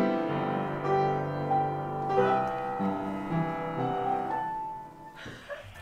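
Upright piano played by hand: a melody over lower notes, each note ringing on, fading out near the end.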